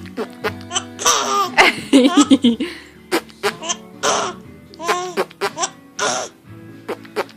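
A baby giggling in repeated short bursts of laughter, with high little squeals between them.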